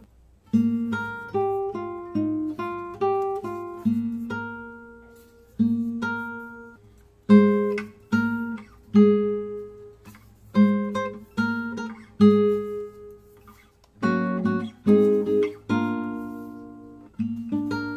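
Instrumental music: an acoustic guitar plucking single notes and chords, each starting sharply and ringing out as it fades.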